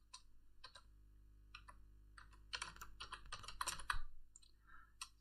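Faint computer keyboard typing: a few separate keystrokes, then a quick run of keys in the middle as a word is typed.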